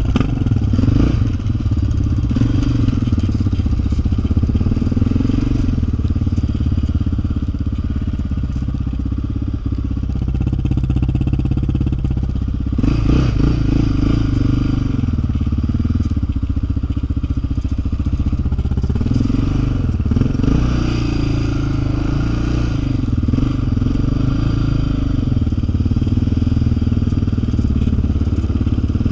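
Yamaha Raptor 660 quad's single-cylinder four-stroke engine running under way, the revs rising and falling with the throttle.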